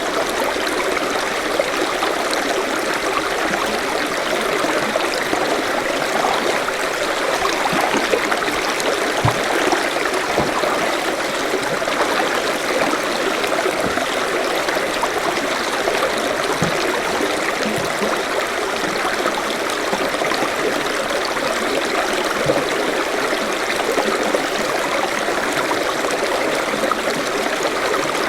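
A forest stream flowing steadily over stones, a continuous rushing babble with the occasional low gurgle or plop.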